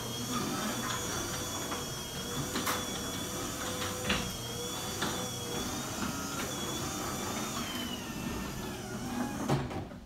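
Garage door opener driving a sectional steel garage door open, a steady mechanical running noise with a few clicks as it travels, then stopping near the end. The door's rollers, hinges and springs are lubricated with white lithium grease, and it runs without the earlier scratching and squeaking: it sounds a lot better.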